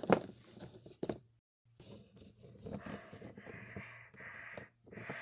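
Handling noise of plastic toy figurines being moved about: a few light clicks and taps with soft rustling, over a faint low hum.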